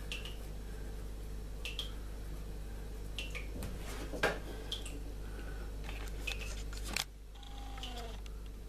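A few short, light scratches of a hard 2H graphite pencil on smooth drawing paper, spaced a second or so apart, over a steady low hum that drops away suddenly about seven seconds in.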